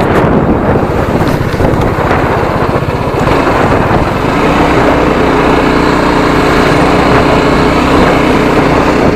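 TVS Apache RR310's single-cylinder engine running under way, mixed with wind noise on a helmet microphone; about four seconds in the engine note settles into a steady hum.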